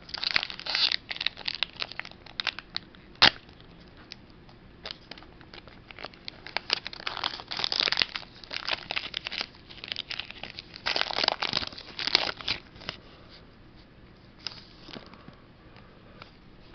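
Pokémon card booster pack's foil wrapper crinkling and tearing open in several irregular bursts, with one sharp tick about three seconds in.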